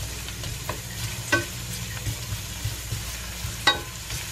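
Chopped red onion sizzling in hot coconut oil in a stainless steel frying pan as a wooden spatula stirs it. Two sharp knocks of the spatula against the pan come about a second in and near the end.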